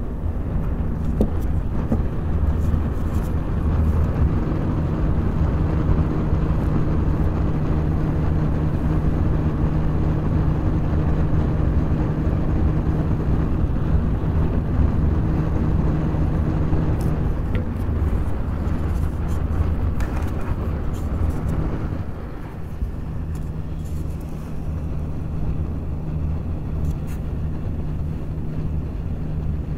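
Noctua NF-A14 PWM 140 mm PC fans, two pairs, running slowly on 5 V USB power. Their airflow makes a steady rushing noise with a low hum. The sound drops a little about 22 seconds in, as the pairs are moved apart.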